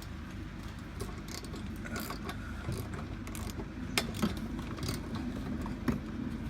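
Irregular metallic clicks and clinks of a steel rear corner bar and its bolts being handled and threaded in by hand, with a few sharper knocks about four seconds in and just before six seconds.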